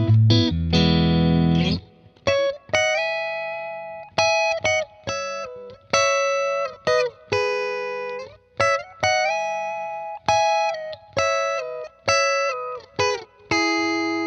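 S-style electric guitar played through a clean amp tone: a strummed chord rings out, then a melodic line of picked single notes and double-stops, each note ringing and fading before the next.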